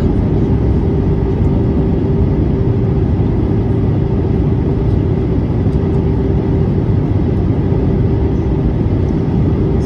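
Steady cabin noise of a jet airliner in flight, heard from a window seat over the wing: the constant rush of the turbofan engines and airflow, with a steady hum underneath.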